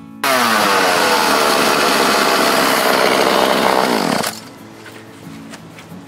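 Chainsaw cutting a thin round off the top of a log. It comes in abruptly at full speed, its pitch sags steadily as the chain works through the wood, and it stops suddenly about four seconds in.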